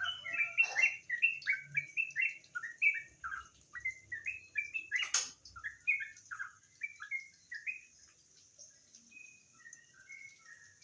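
Yellow-vented bulbul singing a fast run of short chirping notes, thinning out to a few quieter notes in the last few seconds. A single sharp click about five seconds in, over a steady high hiss.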